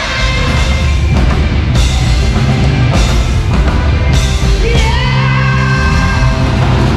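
Rock band playing a song live, loud and full, with a drum kit beating steadily under amplified instruments.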